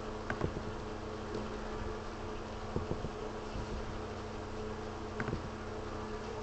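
A steady low buzzing hum, with a few soft clicks and knocks about half a second in, around three seconds in, and again past five seconds.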